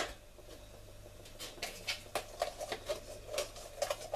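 A teaspoon tapping and clicking against a tub of gravy granules and the cooking pot as granules are spooned into a curry: a sharp click at the start, then a run of irregular light taps.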